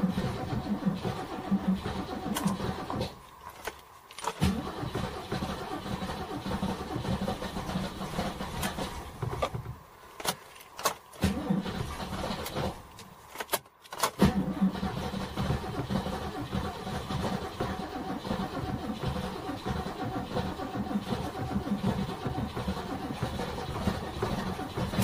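V8 engine of a Chevrolet NASCAR stock car running at a rough, pulsing idle. Three times it drops out briefly and then picks up again with sharp bursts of throttle: a few seconds in, about ten seconds in, and again shortly after.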